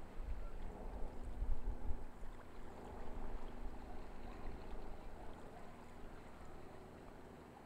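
Wind buffeting the microphone in low, uneven gusts that ease off after about two seconds, over a faint steady hum.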